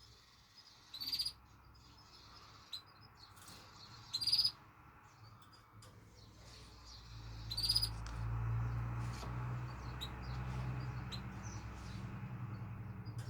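Small cage birds chirping: three short, loud trilled chirps at about one, four and eight seconds in, with fainter chirps between. A low steady hum joins about halfway through.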